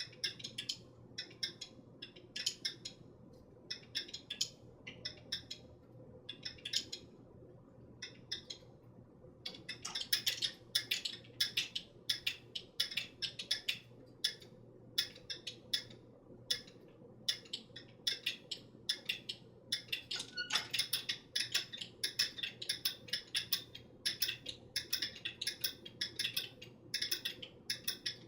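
Dyad wooden kinetic sculpture running: its two spinning wheels and rotating base clicking and knocking irregularly as the mechanisms strike and get their push. The clicks are sparse at first with a brief pause, then come thick and fast from about ten seconds in, over a faint steady hum.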